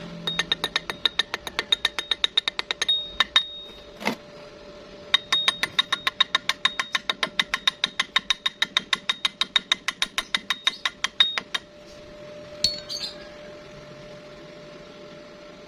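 Rapid ringing metal-on-metal strikes, about seven a second, in two long runs with a brief pause and one heavier knock between them, typical of a chipping hammer knocking slag off a stick weld. A faint steady hum runs underneath.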